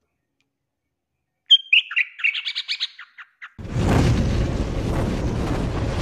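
Yellow-vented bulbul giving a short burst of chirping song notes, starting about a second and a half in. About three and a half seconds in, a loud, steady noisy sound with a deep rumble takes over.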